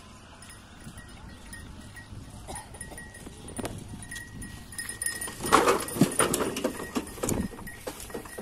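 Bullock cart on the move: the bullock's hooves and the loaded cart's frame and wheels knocking and rattling, with a louder burst of irregular clattering about two-thirds of the way through as the cart leaves the road for the field.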